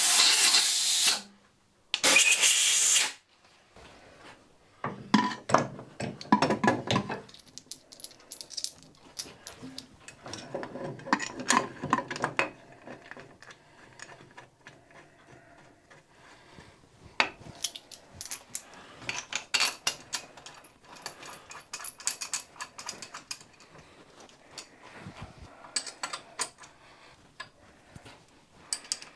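Scattered metal clicks and clinks as a cast-iron traveling steady rest is handled and bolted onto a metal lathe's carriage, with hand tools and screws knocking on steel. Two loud rushing noises, each about a second long, come in the first three seconds.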